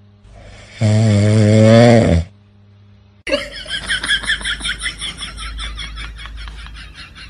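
A sleeping small dog gives one loud, drawn-out snore with a wavering pitch, about a second in. After it comes a fast run of short, high pulses that gradually thin out.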